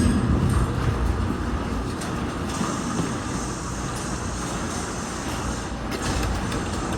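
Commercial garage door in motion, a steady mechanical rumble that eases off slightly toward the end.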